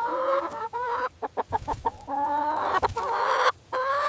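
Chickens clucking and calling: a run of drawn-out calls, each under a second with a rising pitch, broken by short sharp clucks.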